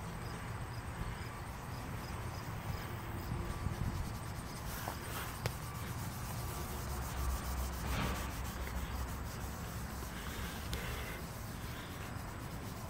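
Cloth rag scrubbing polish cream around a hazed plastic headlight lens, a steady rubbing that grows louder for a moment about two-thirds of the way through. The rag is working off old oxidation haze from the lens.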